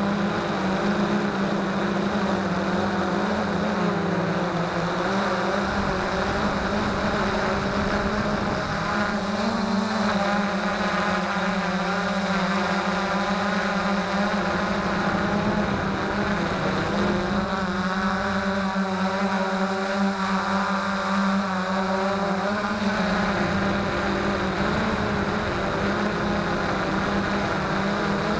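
Freex Skyview quadcopter's electric motors and propellers running in flight, heard from its own onboard camera: a steady hum with a whine above it that wavers up and down in pitch as the motors change speed.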